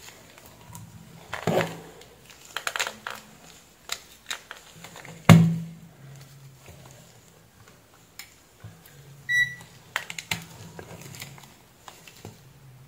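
Clicks and knocks of test leads and a DC plug being handled on a workbench, with one sharp knock about five seconds in. A little after nine seconds a digital multimeter gives one short, high beep as it is switched on.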